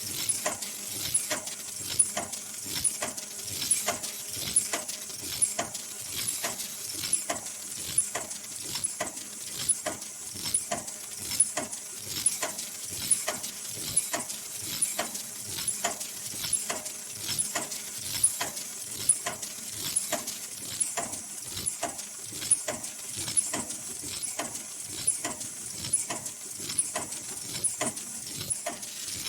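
Automatic N95/FFP2 mask production machine running at high speed: an even, rhythmic clacking of about two strokes a second over a constant high hiss.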